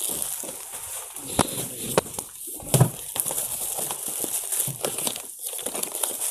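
Cardboard packaging being handled: small boxes of packed T-shirts scraped and shifted inside a cardboard carton, with rustling and a few sharp knocks, the loudest a thump a little under three seconds in.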